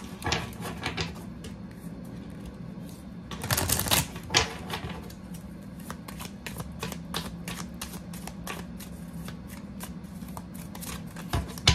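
A thick deck of large tarot-style cards shuffled by hand: swishing slides of cards near the start and again about four seconds in, then a long run of quick, light card flicks and taps through the second half.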